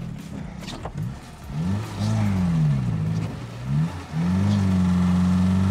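A classic Lada's four-cylinder engine revving up and down twice, then held at steady high revs, labouring under the load of heavy tractor-track wheels in deep snow.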